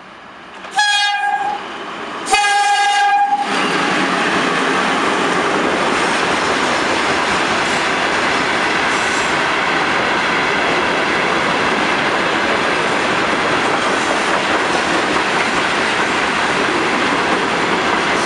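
2ES10 "Granit" electric locomotive sounding its horn twice, a short blast and then a slightly longer one, followed by the loud, steady running noise of a freight train of tank cars rolling past on the rails.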